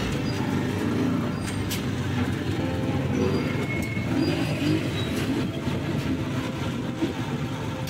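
Steady engine and road rumble from a moving vehicle, heard from its open passenger seat, with a couple of short sharp clicks.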